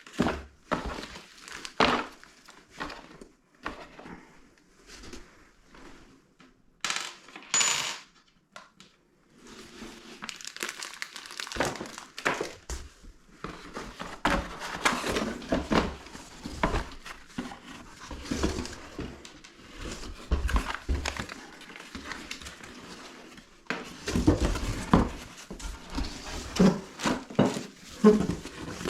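Small metal crossbow parts and screws clinking and rattling as they are handled and set down, with packaging rustling and crinkling between the clinks.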